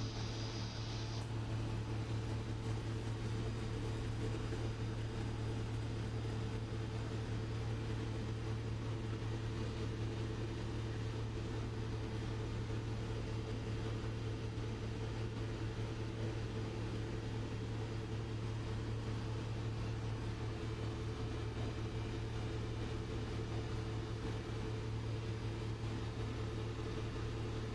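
Steady drone of a ship's running machinery: a continuous low hum with a few fixed tones above it.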